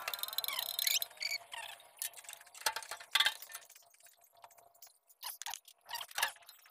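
Metal tools clinking and scraping: wrenches and sockets striking metal in a few sharp clinks while a car's tie rod is worked on at the wheel.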